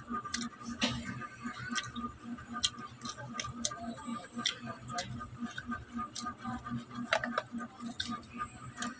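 Scattered sharp clicks and smacks of chewing while eating calamansi, over a steady pulsing hum of about five beats a second.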